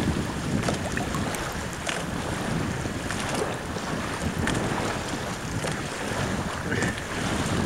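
Wind buffeting the microphone over the rush of water along a sailing dinghy's hull, with small splashes and slaps of water breaking through now and then.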